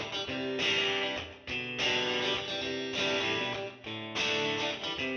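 Background outro music: a guitar playing a run of chords, with no speech.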